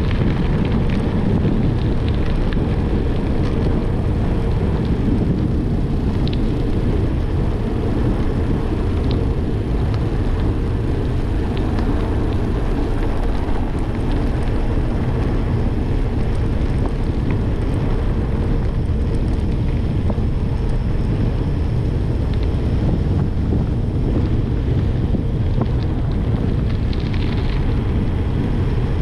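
Wind buffeting the microphone of a camera mounted on a moving bicycle, a steady, loud low rumble.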